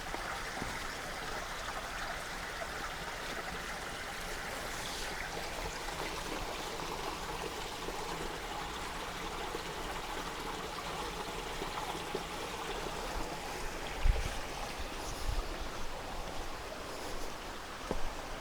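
Creek water flowing steadily, with a few brief low thumps a little past the middle.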